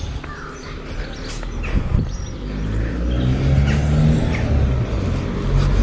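A car approaching along the road, its engine hum growing steadily louder from about two seconds in.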